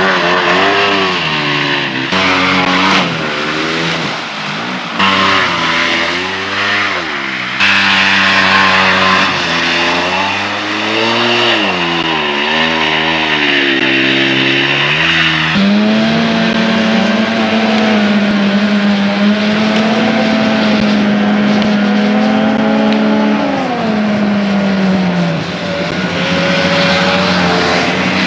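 Ski-Doo Bravo snowmobile two-stroke engines revving hard, the pitch rising and falling again and again. About halfway through the engine settles into a higher, steadier note under throttle, wavering a little, then drops near the end.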